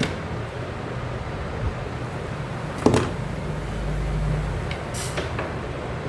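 A few sharp clicks and taps from small tools and parts being handled at a workbench, the loudest about three seconds in and several close together near five seconds, over a steady low background hum.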